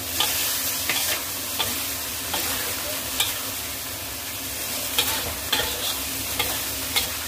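A stir-fry of pork, tofu and pickled mustard root sizzling in a pan while a spatula stirs and tosses it, with short scrapes and knocks of the spatula against the pan at irregular intervals; the cornstarch has just gone in to thicken the sauce.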